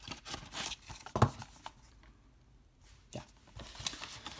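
Cardboard Blu-ray slipcovers sliding and rubbing against each other on a wooden desk: rustling scrapes, a sharp knock about a second in as a case meets the desk, a short quiet pause, a click, then more rustling near the end.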